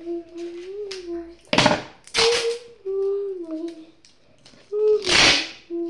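A young girl humming a tune in long held notes that step up and down in pitch, broken twice by a loud, short rushing noise, about a second and a half in and again about five seconds in.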